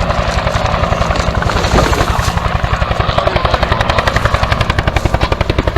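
Helicopter rotor beating steadily with a fast, even chop.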